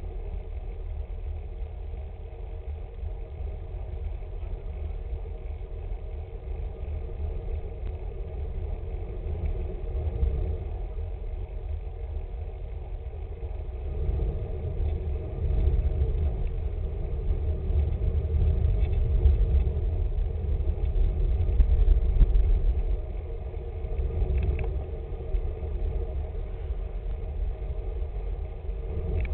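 Wind buffeting the microphone of a camera riding on a road bicycle in a group, a fluctuating low rumble. It grows louder from about halfway through and eases a little before the end.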